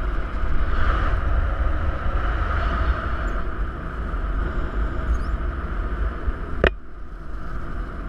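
Wind rushing over the action camera's microphone on a paraglider climbing under winch tow: a steady low rumble with hiss. One sharp click about six and a half seconds in, after which the noise is a little quieter.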